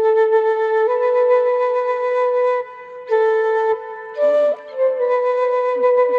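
Bamboo flute playing a slow melody of long held notes, stepping up in pitch about a second in. The phrases break off twice, and each new phrase starts with breath noise. The last note wavers slightly.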